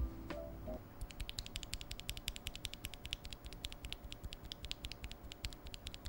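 A loose Akko Vintage White linear mechanical keyboard switch (35-gram operating force) pressed and released rapidly by hand close to the mic: a quick, even run of light plastic clicks, about six a second, starting about a second in. Faint background music lies beneath.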